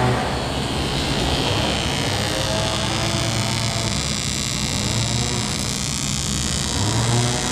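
Welder buzzing steadily with a low electrical hum and a hiss, as the seams of a new boat fuel tank are welded.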